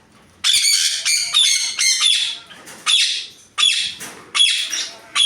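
Parrots squawking: a run of about seven loud, harsh calls, one or two a second, starting about half a second in.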